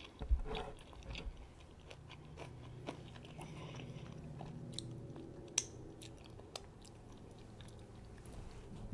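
Close-miked chewing of a guacamole and candied bacon burger slider: soft, wet mouth clicks and smacks, with a low hum in the middle.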